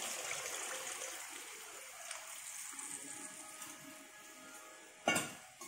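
Tamarind water poured from a steel vessel into a pan of boiling fish curry, a splashing pour that fades over the first couple of seconds into a fainter rushing sound. A single sharp knock near the end, with a smaller one just after.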